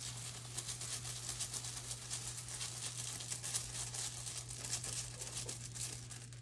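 Soft, dense rustling with small clicks as a hand rummages among rune tiles to draw one, over a steady low hum.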